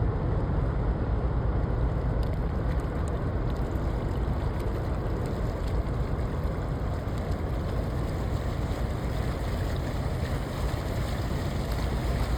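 Steady low rumble of a ship under way on the canal, mixed with wind noise on the microphone.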